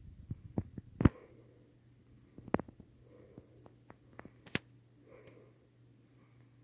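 Pull-chain switch clicks about a second in and a circa-1987 Firebird-built Homestead Universal direct-drive ceiling fan motor starts on low with a steady low hum. The swinging pull chain taps against the light-kit finial now and then, giving sharp clicks.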